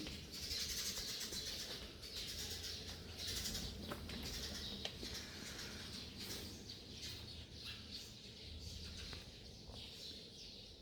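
Flock of Eurasian tree sparrows chirping, a faint irregular twittering of many short high calls.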